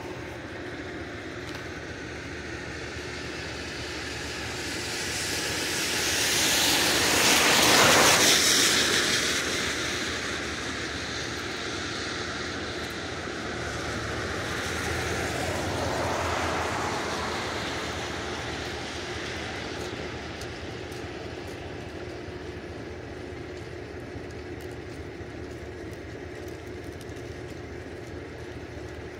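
Two vehicles pass on a wet road, their tyres hissing on the wet pavement. The first swells up and fades away a quarter of the way in and is the loudest; a fainter one follows about halfway through, over a steady background hiss.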